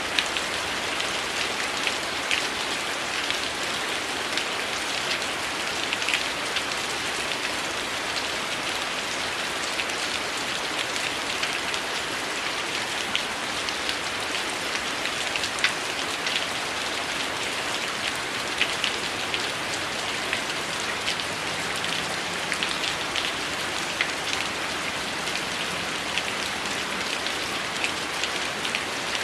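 Heavy rain falling steadily, with many small sharp ticks scattered through it.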